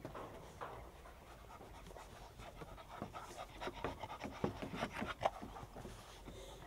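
A spaniel panting close up, quick irregular breaths that grow stronger about halfway through.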